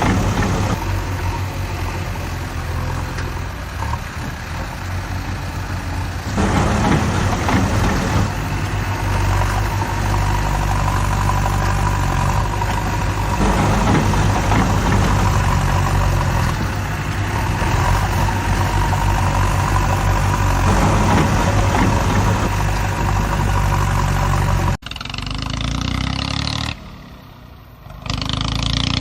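A vehicle engine running steadily at idle with a low hum. The sound cuts abruptly about 25 seconds in and drops briefly near the end.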